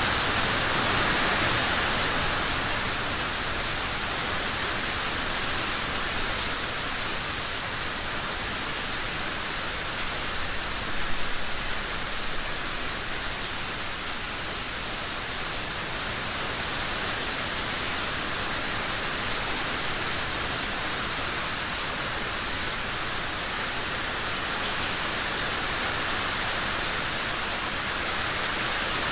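Steady rain falling, an even hiss, with one brief louder moment about eleven seconds in.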